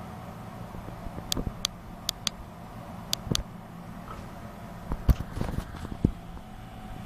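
Snoring: a steady low drone broken about every two seconds by little clusters of sharp clicking sounds.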